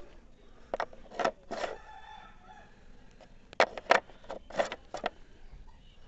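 Sharp plastic clicks and knocks as AA batteries are pressed into a mini keyboard's battery compartment. They come in two clusters: three in the first couple of seconds, then four more a little over three seconds in.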